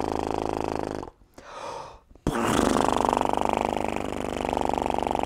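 A trumpet player's free lip buzz, lips vibrating without a mouthpiece to imitate a lawnmower. It comes as two long steady buzzes: one stops about a second in, and after a short breath a longer one runs from a little after two seconds.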